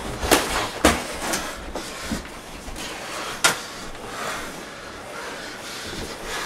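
Boxing gloves landing on the fighters, sharp thuds and slaps: three quick hits in the first second and a half, and one more about three and a half seconds in.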